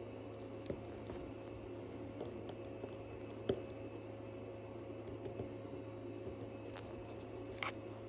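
A few faint, sharp clicks and small taps of a watchmaker's tweezers and tools on the parts of a watch movement being fitted together, over a steady low hum.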